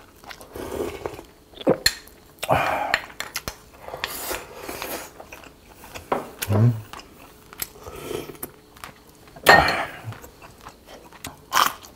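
A person chewing a mouthful of rice and braised pork close to the microphone: wet smacking and irregular sharp clicks.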